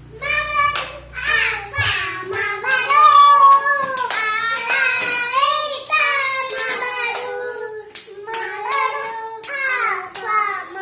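A child singing a melody in a high voice, with several sharp clicks or hand noises in between.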